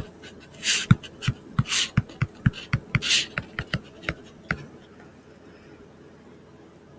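A stylus tapping and scratching on a tablet screen during handwriting: a quick, irregular run of taps, about three a second, with three short scratchy swishes. It stops about four and a half seconds in.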